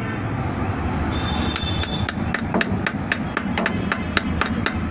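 Rapid, even hammer strikes, about four a second, starting a little over a second in, over a low steady rumble.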